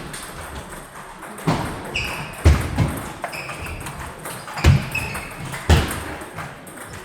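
Table tennis play: the ball knocking on the table and paddles about five times, with short high squeaks of sports shoes on the hall floor in between.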